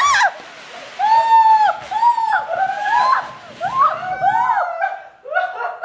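A ground spinner (chakri) firework spinning on a tiled floor with a hiss, under repeated short, high squeals that rise and fall, each about half a second long and sometimes two overlapping.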